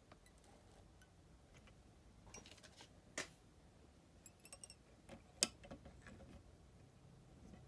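Small clicks and taps from fly-tying tools at a tying bench, scattered and faint, with a sharper click about three seconds in, a quick run of light metallic ticks around four and a half seconds, and the loudest click about five and a half seconds in.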